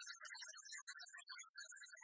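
Faint music, heavily garbled: it comes through as scattered short blips of tone with no bass.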